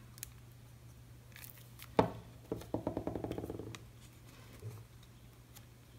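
Faint craft-table handling noises: a sharp click about two seconds in, then a second or so of rapid rubbing and rustling as a glued paper die-cut is pressed onto the card, over a low steady hum.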